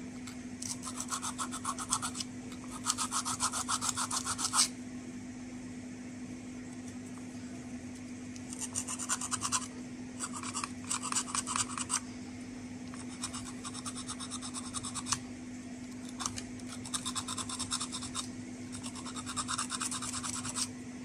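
Sandpaper rubbed back and forth by hand on the stainless-steel ends of SBM-20 Geiger-Müller tubes, cleaning the metal to a shine before soldering, in several short bouts of quick strokes with pauses between. A steady low hum runs underneath.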